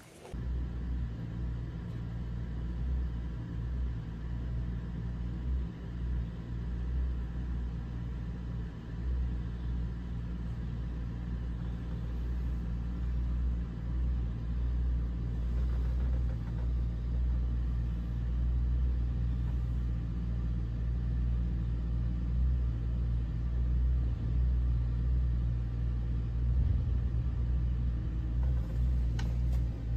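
John Deere 60D mini excavator's diesel engine running steadily under work, a deep even drone with small rises and falls in level.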